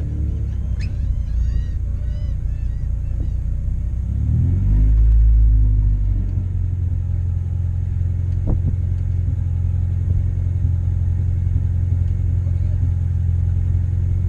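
Car engine running with a steady low rumble, revving up briefly about four to five seconds in before settling back.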